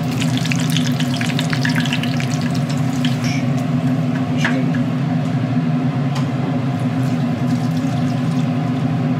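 Dried anchovies and green onion frying in oil in a small stainless steel pan, crackling and sizzling as they are stirred with a wooden spatula, to make anchovy-scallion oil. The crackle is densest in the first few seconds, then thins to scattered pops, over a steady low hum.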